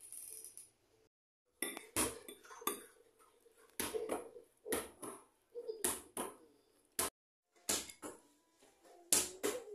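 Metal fork clinking and scraping against a plate, a dozen or so sharp, irregular clinks starting about a second and a half in.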